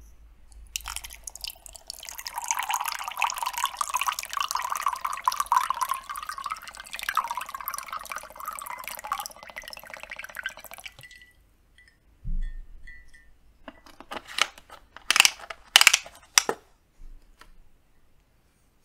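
Coconut water poured from a carton into a glass mug over ice, a steady splashing pour that lasts about ten seconds. After it stops comes a soft thump, then a handful of sharp clicks and taps, the loudest sounds here.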